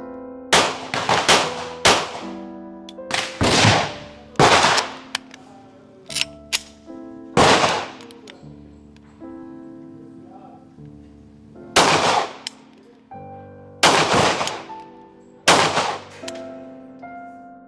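Heckler & Koch P7M13 9mm pistol firing about ten shots, some in quick pairs and others several seconds apart, each trailing off briefly. Instrumental background music plays throughout.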